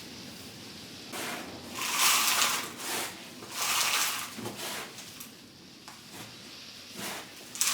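Loose potting compost being scooped and spread into plastic seed module trays by hand: several separate rustling, scraping bursts, the loudest about two seconds in.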